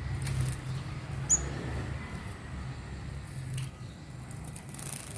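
A brown-throated sunbird chick gives one short, high chirp about a second in, over a low rumble and a few soft swishes.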